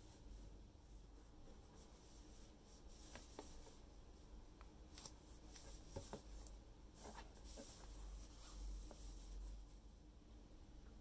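Faint handling sounds of a boxed toy figure during unboxing: soft rubbing and a few scattered light clicks and taps.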